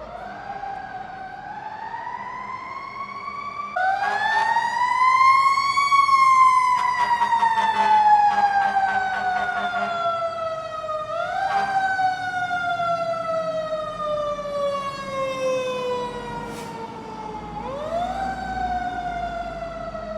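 Emergency vehicle siren wailing. Its pitch jumps up quickly, then slides slowly down for five or six seconds before jumping up again. It gets suddenly louder about four seconds in.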